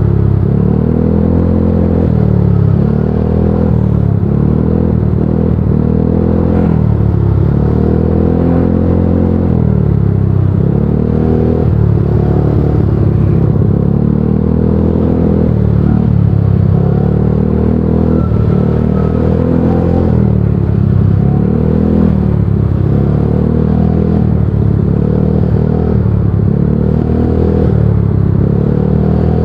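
Motorcycle engine running under the rider, its pitch repeatedly rising and dropping back every second or two as the throttle is opened and eased off in slow stop-and-go traffic.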